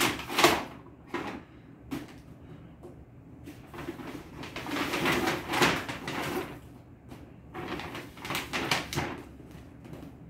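Brown paper grocery bag rustling and crackling as cardboard boxes are pulled out of it and set down on a tiled floor, in several bursts of handling.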